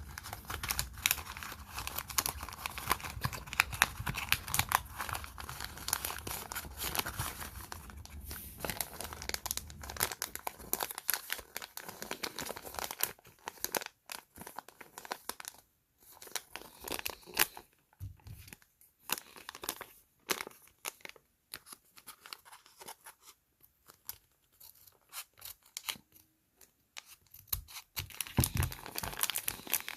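Small plastic packaging being crinkled and torn open by hand. The crackling is dense for about the first ten seconds, then turns into scattered crinkles and clicks with short pauses.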